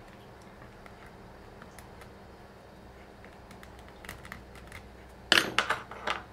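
Faint light ticks of a round file worked in the holes of a small 3D-printed plastic part, then about five seconds in a loud brief clatter of hard plastic parts and a metal file set down on a cutting mat.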